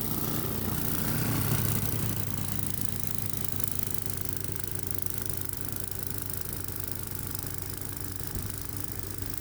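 An engine running steadily at a constant speed, with no revving.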